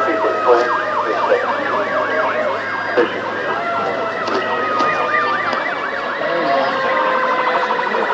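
Several emergency vehicle sirens sounding together: one yelps in quick up-and-down sweeps, about two a second, over slower wails whose pitch drifts down, and a faster pulsing siren comes in near the end. Fire and rescue units are responding to the crash call.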